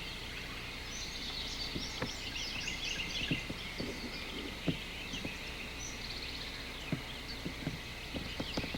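Many small birds chirping and singing at once, with scattered soft taps.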